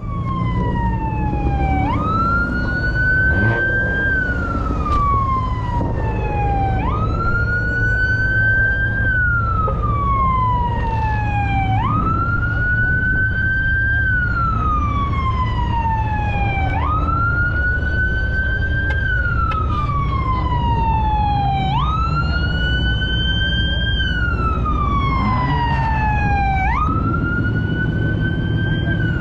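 Police car siren sounding a slow wail. Its pitch jumps up, climbs a little more, then glides down for about three seconds, and the cycle repeats about every five seconds. A steady low rumble lies underneath.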